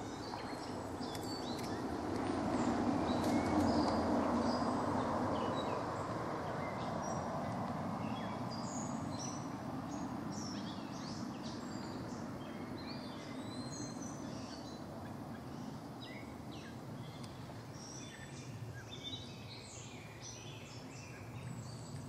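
Small birds chirping and calling over a low rushing noise that swells in the first few seconds and then slowly fades.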